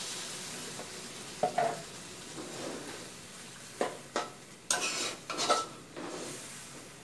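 Water poured into a hot wok of pork belly curry, with a hiss that fades in the first second or so. Then a metal spatula scrapes and knocks against the wok as the curry is stirred, with a run of sharp scrapes about four to five seconds in.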